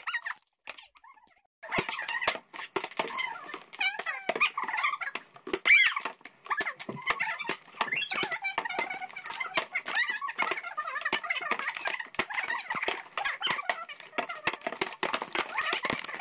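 Clear plastic wrap being handled close by: a busy run of crinkling and squeaking that starts about a second and a half in.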